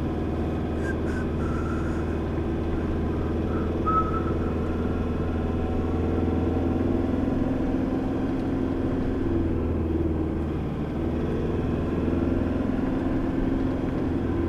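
Four-wheel-drive vehicle driving along, a steady drone of engine and tyre noise.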